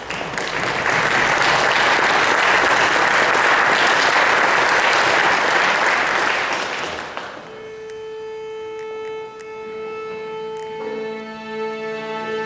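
Audience applause for about seven seconds, fading out; then bowed strings begin, one long held note joined by lower string notes about three seconds later.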